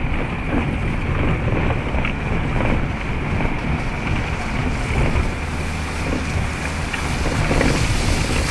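Land Rover Defender 90's diesel engine running as it drives slowly through muddy puddles, with wind rumbling on the microphone; it grows a little louder near the end.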